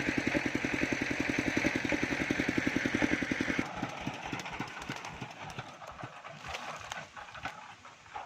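Engine powering a homemade sawmill running steadily with a rapid even beat, then shut off a little over a third of the way in, its pulses slowing and fading as it spins down to a stop.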